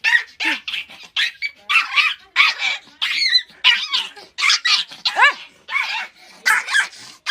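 A dog barking and yipping in quick succession, about two to three calls a second, some of the yips rising in pitch.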